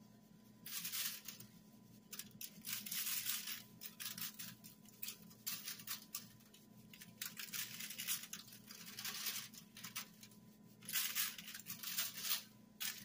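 Sea salt shaken out of a canister's shaker lid onto a raw duck: repeated bursts of granules pattering, with short pauses between shakes.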